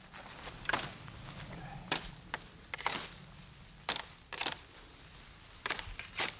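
A blade chopping side limbs off a green bamboo pole: about seven sharp strikes, irregularly spaced at roughly one a second.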